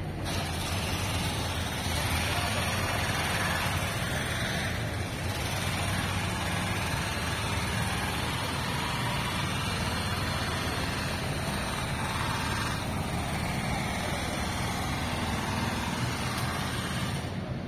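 City street traffic: a steady hum of car and truck engines and tyres, with a few vehicles swelling a little louder as they pass.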